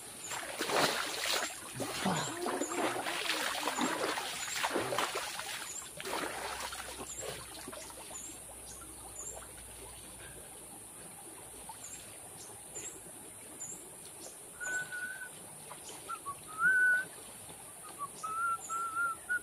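River water splashing as a bather scoops and pours it over himself during the first six seconds. A few short whistled notes follow in the last five seconds, over a steady high insect drone.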